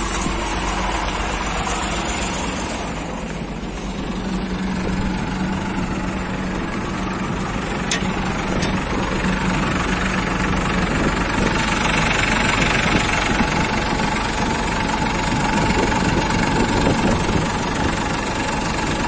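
John Deere combine harvester's diesel engine running steadily at idle, heard up close; it grows a little louder about halfway through.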